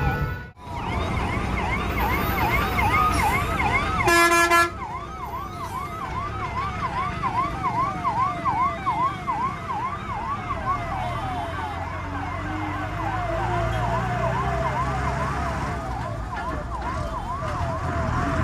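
Emergency vehicle siren on a fast yelp, rising and falling about three times a second over low traffic rumble, with a short vehicle horn blast about four seconds in.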